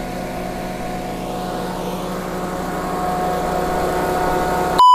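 Small petrol engine running steadily, driving a multipurpose forage chopper with its blades spinning, the level rising slightly. A loud electronic beep cuts in right at the end.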